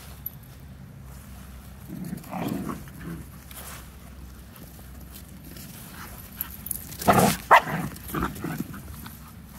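Puppies barking during rough play: a short bout about two seconds in, then a louder cluster of barks about seven seconds in.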